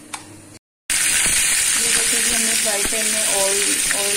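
Pre-boiled beef chops frying in hot oil in a non-stick pan: a loud, steady sizzle that starts abruptly about a second in, after a brief click.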